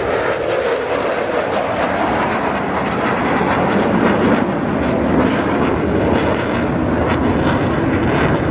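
Eurofighter Typhoon jet fighter making a low display pass: a loud, continuous jet roar whose pitch shifts as the aircraft goes by.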